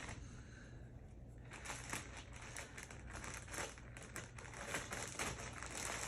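Packaging crinkling and rustling in irregular faint crackles as clothing is handled and unpacked.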